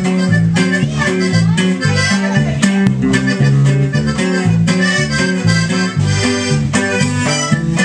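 Live band playing: an accordion carries the melody over a bass line that steps between low notes and a steady drum-kit beat.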